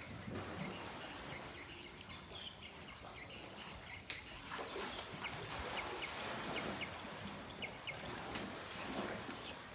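Repeated short, high chirps over a steady background noise.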